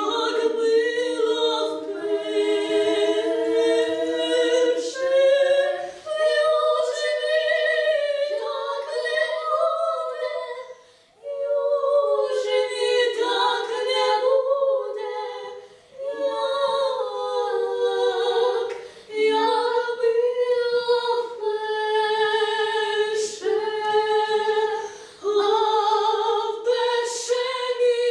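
Two female voices singing a Ukrainian folk song a cappella in two-part harmony, their lines moving in parallel. The phrases are broken by short breaths, the longest gap about eleven seconds in.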